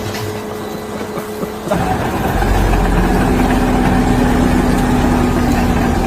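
An engine running steadily. About two seconds in it gets louder and takes on a steady drone with a deep rumble.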